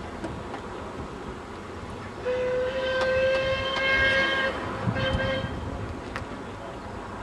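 Whistle of a narrow-gauge Llanberis Lake Railway locomotive: one long steady blast of about two seconds, then a short blast half a second later.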